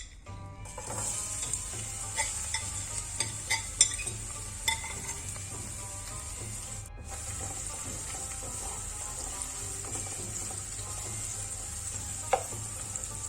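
Food sizzling in hot oil in a pot, with a utensil stirring and clicking against the pot several times in the first few seconds and once more near the end. The sizzle breaks off for an instant just past halfway.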